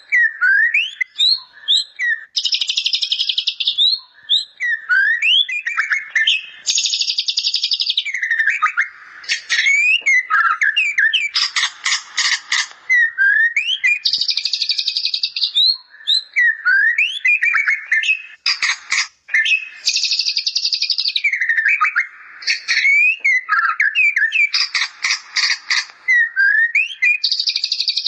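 White-rumped shama (murai batu) singing continuously. Clear whistled slurs alternate with fast, high trills and rapid buzzy note series, the shama's mimicry of a bar-winged prinia (ciblek) woven into its song.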